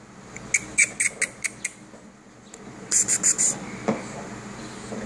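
Bulldog gnawing a deer antler: hard clicks of teeth on antler, a quick run of them about half a second in and a tight cluster around three seconds in, followed by a duller knock.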